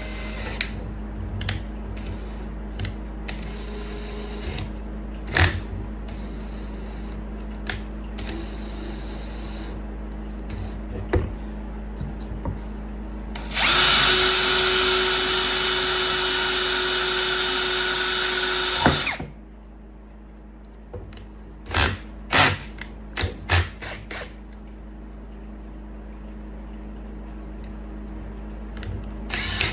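Electric drill running steadily for about five seconds in the middle, with scattered clicks and knocks of tool handling before and after it.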